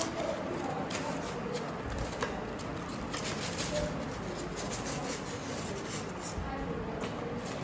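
Cardboard shipping box being handled and opened by hand: flaps scraping and rubbing, with irregular crackles as the wrapped item inside is slid out.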